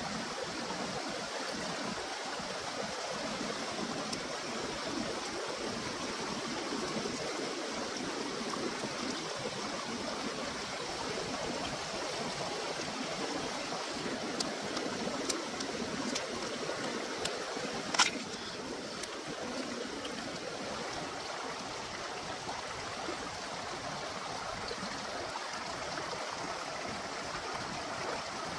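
Small rocky stream running steadily over stones. A few light clicks, then one sharp, loud snap about two-thirds of the way through.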